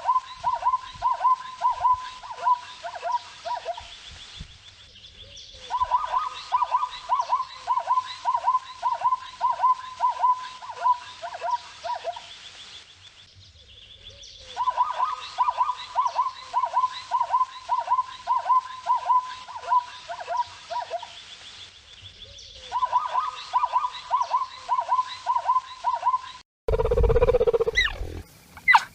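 A bird calling in rapid runs of repeated notes, about three a second, each run lasting several seconds with short pauses between. Near the end a different, louder and lower animal sound lasts about two seconds.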